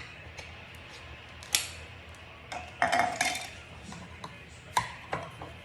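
Cans of condensed cream of chicken soup and a metal utensil clinking and knocking against each other and the crockpot: a few sharp knocks, with a short ringing clatter about three seconds in.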